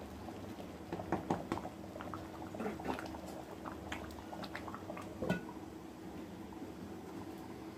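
Thick mutton dalcha gravy bubbling at the boil in a kadai, with scattered wet pops and plops as it is stirred with a wooden spoon. There is one sharper knock a little past five seconds in.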